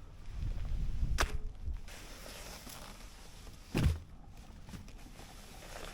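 Camping gear being handled: rustling and low bumps, with a sharp click about a second in and a louder thump near the middle.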